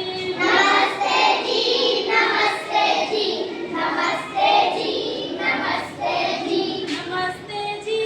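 A child singing a song.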